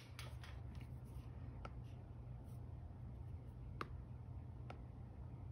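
Faint taps of a stylus tip on a tablet's glass screen, about three of them, over a steady low hum.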